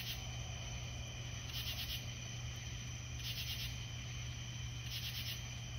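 Night insects calling: a short trilled chirp repeating about every second and a half to two seconds, over a steady high insect drone and a low hum.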